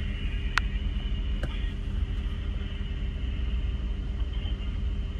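Steady low rumble and hum inside a car with its engine running, with two short clicks near the start.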